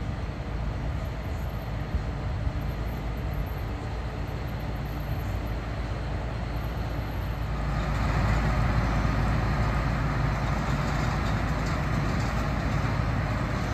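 Mount Washington Cog Railway locomotive running with its passenger coach on the rack track: a steady low rumble that grows louder and noisier about eight seconds in.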